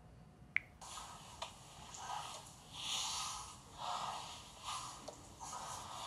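A click, then heavy breathing and gasps played back from a phone voice recording, sounding thin and filtered. The breaths come in uneven swells, about one every second.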